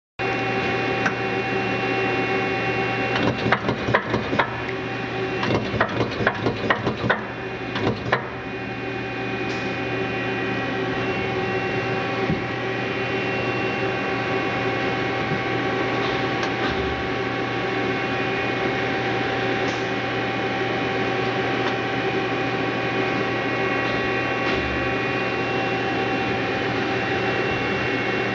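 Mazak Quick Turn 8N CNC lathe running under power with a steady hum and whine. A rapid run of clicks and clatter comes between about three and eight seconds in.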